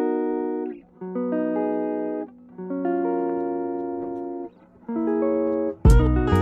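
Background music: a series of held guitar chords with short pauses between them, then a beat with drums and bass comes in near the end.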